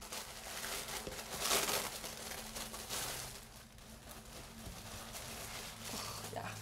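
Wrapping paper rustling and crinkling as a wrapped item is unwrapped by hand, in uneven bursts that are loudest about a second and a half in.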